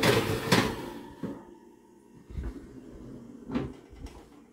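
Metal clatter of an oven rack and foil-lined baking tray being slid back into the oven, then a few lighter knocks as the oven door is handled. The loudest clatter is in the first second.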